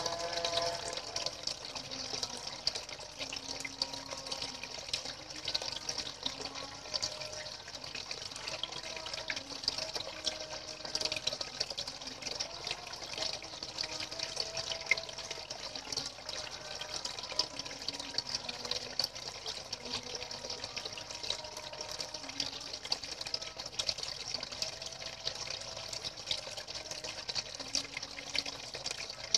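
Two thin jets of water pouring steadily into a fish pond, splashing continuously on the surface.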